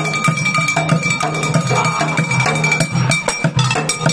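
Street drummers playing a fast, steady rhythm with drumsticks on a junk-percussion kit of upturned plastic water jugs, buckets, aluminium cooking pots and pan-lid cymbals, with a high metallic ringing tone held over the beat.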